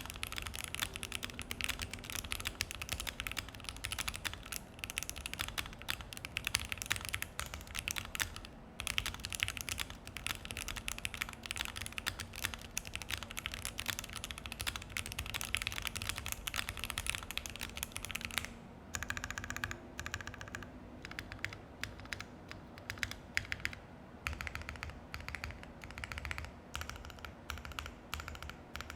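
Fast typing on a Keychron Q1 mechanical keyboard with an FR4 plate and EPBT PBT keycaps: a dense run of key clacks, first on Banana Split switches, then, after a short pause about two-thirds of the way through, on OP Black switches.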